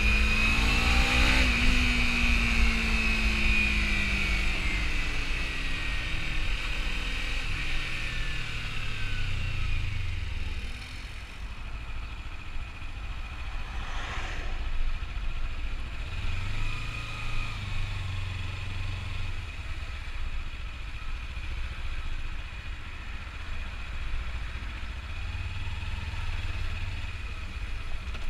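Kawasaki Ninja 300 parallel-twin engine heard from the rider's seat. It revs up briefly at the start, then winds down steadily as the bike slows. For the rest of the time it runs quieter at low revs, with a couple of short throttle rises while crawling in traffic.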